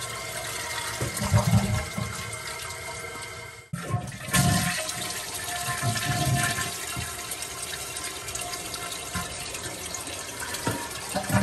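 Two-piece toilet flushing, water rushing steadily; the sound cuts out briefly about three and a half seconds in, then resumes.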